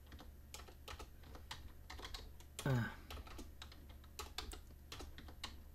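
Typing on a computer keyboard: irregular, quick key clicks, with a brief murmur of a voice about three seconds in.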